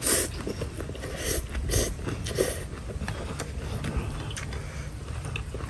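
A man slurping rice noodles and chewing, with several loud slurps in the first two and a half seconds. Later, a few light clicks of chopsticks against the bowl as he stirs the noodles and chilies.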